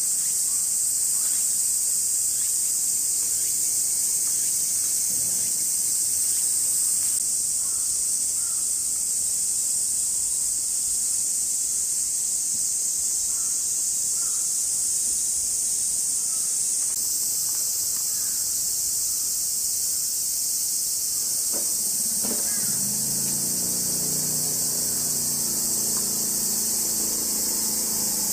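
Cicadas droning loudly and steadily in summer heat, a high-pitched unbroken buzz. People's voices come in faintly near the end.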